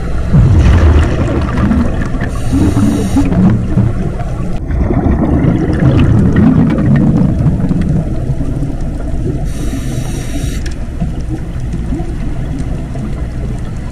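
Underwater sound of a scuba diver breathing through a regulator: a hiss on each inhale, twice, about seven seconds apart, and low bubbling from the exhaled air in between.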